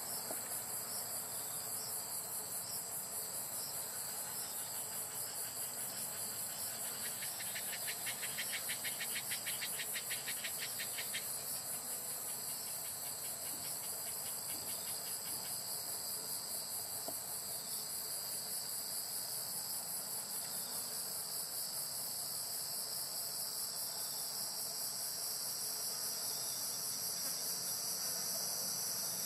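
Chorus of crickets trilling: a steady, high-pitched pulsing trill, joined from about seven to eleven seconds in by a second, lower, fast-pulsing trill.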